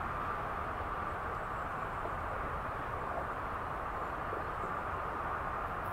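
Steady hum of interstate highway traffic, mixed with wind.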